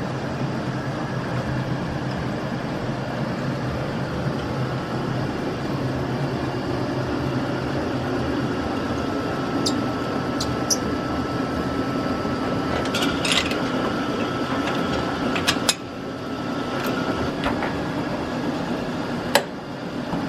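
A machine running steadily with a low hum. A thin whine comes in partway through, with a few sharp metallic clicks, and a single sharp knock near the end.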